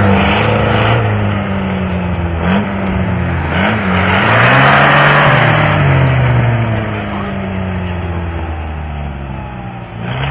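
Off-road vehicle engine working hard and revving, its pitch rising and dipping again and again. There are two quick blips of the throttle in the first four seconds, and it is loudest about halfway through.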